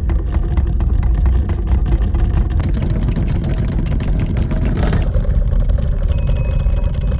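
Designed steampunk machinery sound effect: a heavy low mechanical rumble with fast clattering ticks. A brief noisy swell comes about five seconds in, after which a steady pitched whine joins the rumble.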